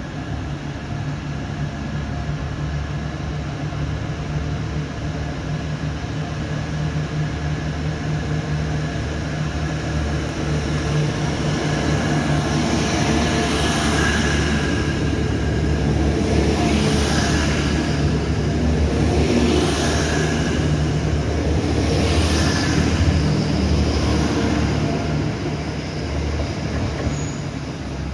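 Grand Central Class 180 diesel multiple unit running alongside the platform. A steady low drone from its underfloor diesel engines grows louder as it nears. As the coaches go by, the wheels click in pairs roughly every three seconds.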